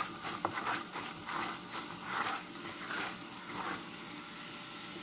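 Caramel syrup of coconut sugar and water bubbling and sizzling in an aluminium pan while it is stirred, with a stroke about every half second, fading to a steady faint sizzle near the end. The syrup is close to done.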